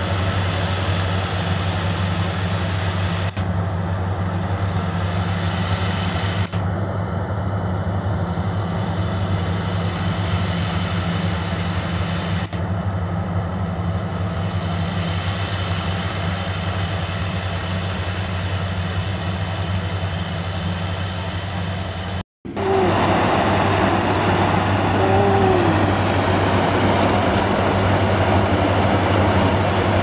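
Sumo Crown rice combine harvester running steadily under load, its engine hum and threshing machinery constant. The sound cuts out for a moment about two-thirds of the way through, then comes back louder.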